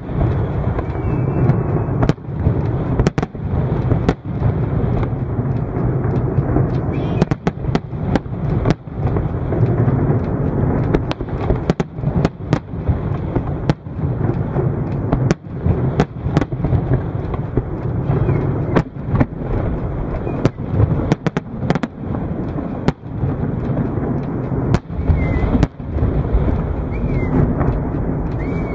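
Aerial fireworks display: shells launching and bursting in a continuous barrage, many sharp bangs several times a second over a constant low din of the show.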